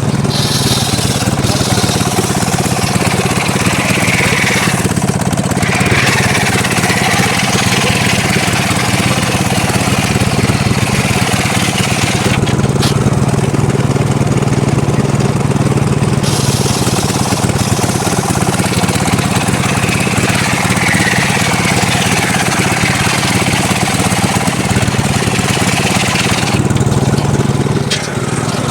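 Engine-driven mobile circular sawmill running steadily while its blade saws through mahogany, with a low engine hum under a loud, hissing cutting noise. The cutting noise drops away for a few seconds about halfway through, then comes back.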